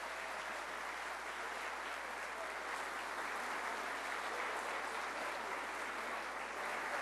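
A seated audience applauding steadily, a dense even clapping that holds at one level throughout.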